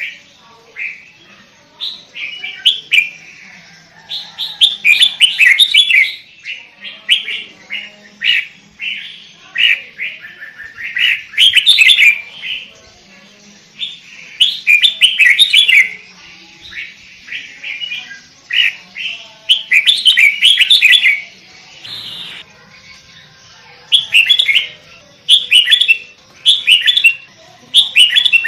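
Sooty-headed bulbul (kutilang) singing: short chirping phrases repeated every second or two, with a brief pause about three-quarters of the way through.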